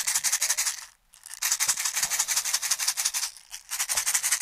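Steel BBs rattling rapidly inside a hand-held BB speed loader as it is shaken, to spread a little silicone oil over the BBs so they slide and feed freely. The rattle stops briefly about a second in and again about three and a half seconds in.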